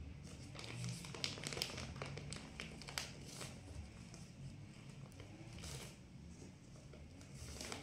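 Plastic wrapping of a large diaper pack crinkling and crackling under a toddler's picking fingers, in irregular spells with a few sharp ticks.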